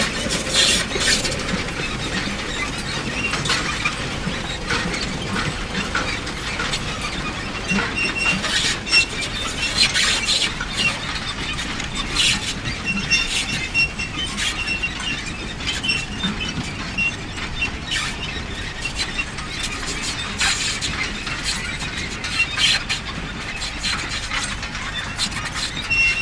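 Manure spreader's mechanism running: a steady clatter full of irregular clicks and rattles, with short high squeaks coming and going.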